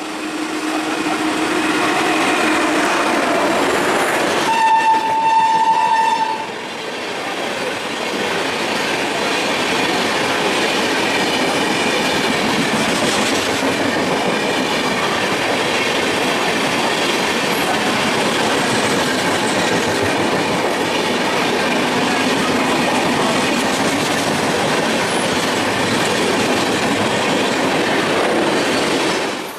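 Indian Railways train sounding its horn, then a louder horn blast about four and a half seconds in that lasts nearly two seconds. After it the train keeps passing with a steady, even rolling noise of wheels on rails.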